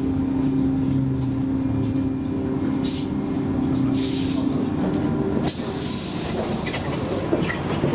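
Inside a Gothenburg M31 tram: a steady electrical hum from the tram's running gear fades away over the first few seconds. Short hissing sounds come about three, four and six seconds in, with a sharp knock about five and a half seconds in.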